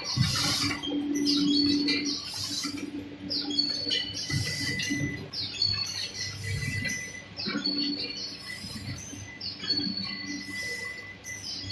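Pouch filling and sealing packing machine running: a steady low hum under short high-pitched falling whistles and brief high beeps that come again every second or two, with light clicks.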